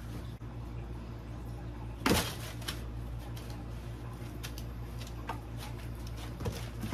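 A cat rummaging in a cardboard box of toys: one sharp bump and rustle of the cardboard about two seconds in, then a few light clicks and scrapes.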